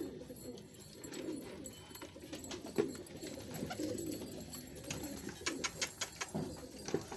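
Racing homing pigeons cooing over and over, with a run of sharp clicks or taps about two-thirds of the way in.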